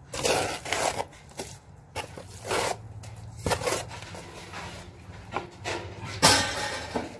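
Steel trowel scraping wet sand-cement mortar out of a bucket and slapping it onto the back of a ceramic tile, in a series of short scraping strokes with the loudest near the end.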